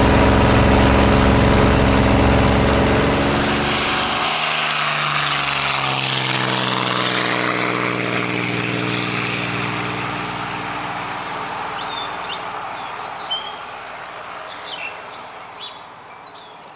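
Propeller aircraft's piston engine: first running steadily as a loud drone inside the cockpit, then, after about four seconds, the plane passing low, its engine note falling in pitch and fading away. Birds chirp faintly near the end.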